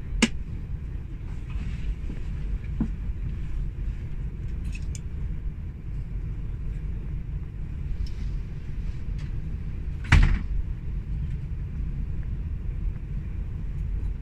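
Steady low rumble heard inside a Class 390 Pendolino electric train as it pulls slowly out of a station. A sharp knock comes just after the start, and a louder one about ten seconds in.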